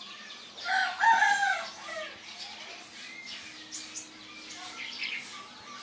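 A rooster crows once, starting about a second in and lasting about a second, its pitch falling at the end.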